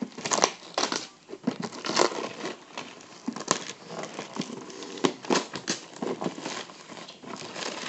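Wrapping being torn and crinkled off a toy box in irregular rustling, crackling bursts.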